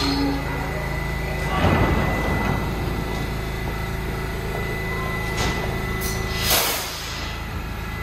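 New York City subway train at a station platform, with a steady low rumble and two bursts of air hissing: one about two seconds in and a louder one near seven seconds.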